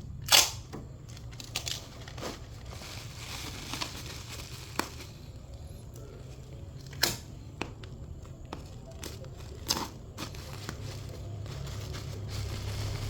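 Packing noises as a phone mainboard is wrapped: plastic wrap and tape being handled and torn, with a few sharp snaps scattered through, over a low steady hum.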